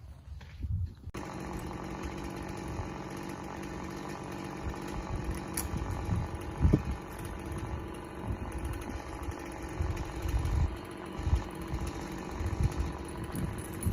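Engine of tree-trimming equipment running steadily, cutting in about a second in, with scattered low thumps, the loudest about two-thirds of the way through.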